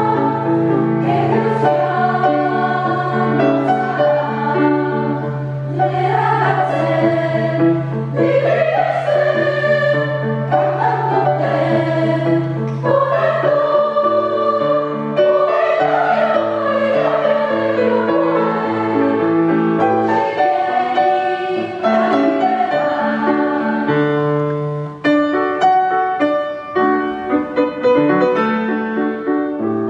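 Women's choir singing with piano accompaniment. Near the end the piano comes to the fore with quick struck notes.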